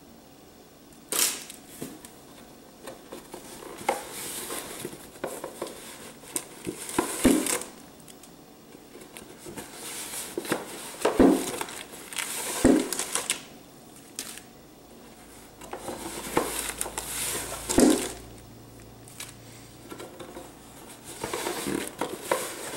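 Handling noise from a hand-stitched book with thick cardboard pages and loose papers being moved about: bursts of rustling with about five sharp knocks.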